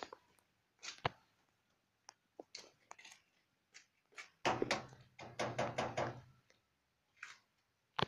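Two kittens play-fighting on a stone floor: scattered light knocks and scuffles, with a denser spell of scuffling about halfway.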